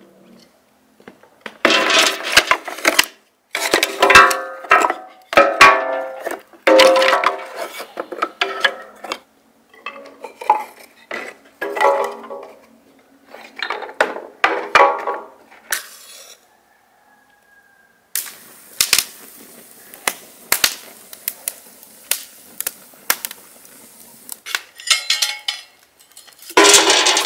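Firewood clattering into a sheet-metal brazier, the thin steel ringing with each piece. After a short pause a wood fire crackles with sharp snaps over a steady hiss, and a loud metal clatter comes near the end as an iron trivet ring is set over the flames.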